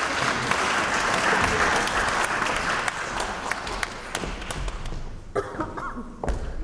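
Audience applauding, a dense patter of many hands that fades out about five seconds in, followed by a few scattered knocks.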